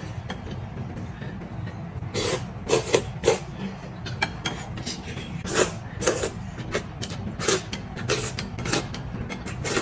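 Close-miked mukbang eating sounds: a person chewing and smacking on braised pork knuckle, in a string of short, irregular smacks and clicks.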